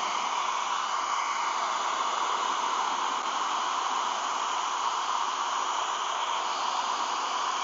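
Hot-air blower running steadily with an even rushing hiss, heating optical clear vinyl so it softens and stretches over a curved goggle lens.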